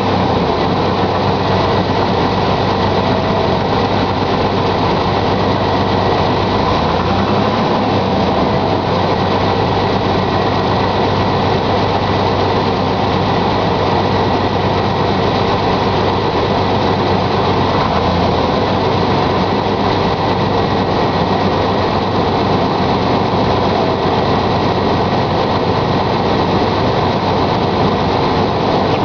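1999 Chevy S-10 ZR2's 4.3-litre V6 running steadily at idle with an engine knock, shortly after a cold start.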